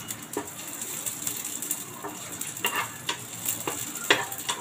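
Raisins frying in ghee in an aluminium pressure cooker: a light sizzle, with a spatula scraping and tapping on the pan's bottom at irregular moments as they are stirred.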